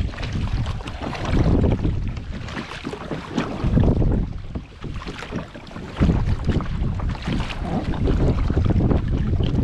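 Wind buffeting the microphone with a heavy, uneven rumble, over water splashing around a kayak on the move. The wind eases for a moment past the middle, then gusts back in suddenly.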